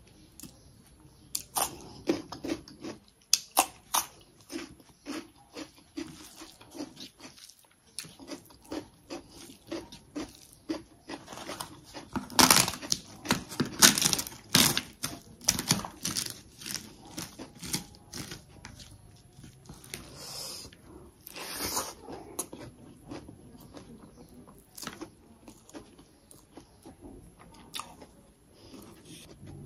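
Eating sounds: chewing with wet mouth noises, and crisp papad being snapped by hand and crunched, loudest about halfway through.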